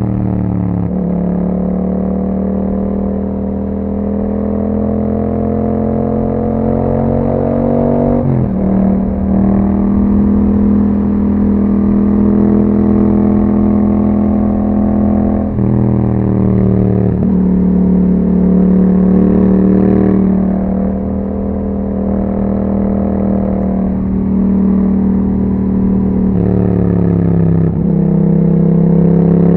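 2021 Yamaha MT-07's 689 cc parallel-twin engine running through an Akrapovic exhaust while riding. Its pitch climbs or holds steady and drops sharply three times, about 8, 16 and 27 seconds in, as gears change.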